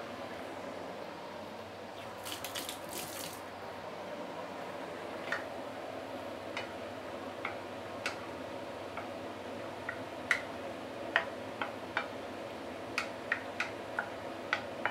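Chicken stewing in soy-seasoned stock in a nonstick wok, the liquid simmering steadily. A wooden spoon stirs it, knocking against the pan in light clicks that come sparsely at first and then several a second from about ten seconds in, with a short rustle about two seconds in.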